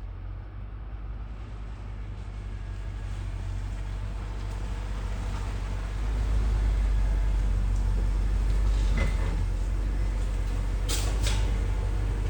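A vehicle engine running with a steady low drone that gets louder about six seconds in, with two short clicks near the end.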